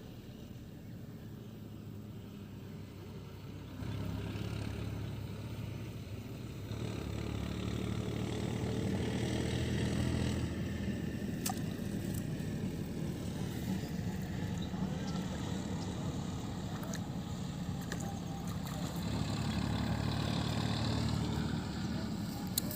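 An engine running steadily, getting louder about four seconds in.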